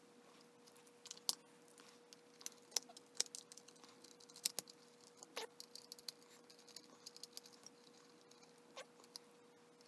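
Faint, irregular clicks and scratches of hands and a small tool working at the screws and plastic body of a model train, over a faint steady hum.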